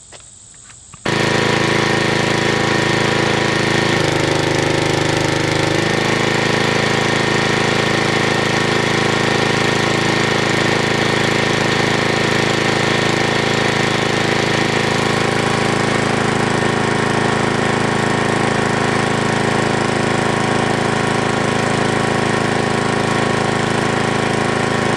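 Engine-driven generator running steadily under load from a large electric fan. It comes in abruptly about a second in, and its note shifts briefly around four to six seconds in.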